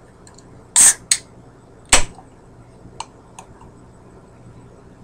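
A can of Blast by Colt 45 malt beverage being cracked open: a sharp pop with a quick hiss about a second in, a smaller one just after, and another sharp crack about two seconds in, followed by two light clicks a second or so later.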